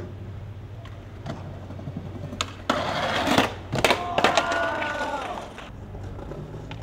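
Skateboard on a street spot: a loud scrape of the board about three seconds in, then sharp clacks as it lands and hits the ground, over a steady low hum.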